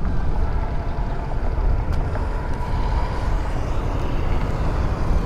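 Motorcycle on the move: steady wind and road noise on the rider's camera microphone with the engine running underneath.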